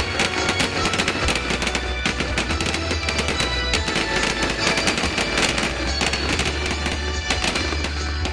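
Aerial firework shells bursting, with many bangs and crackles throughout, over background music.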